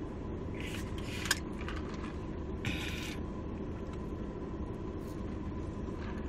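Chewing and crunching of fast food, a few short crunches around one second and three seconds in, over a steady low background rumble.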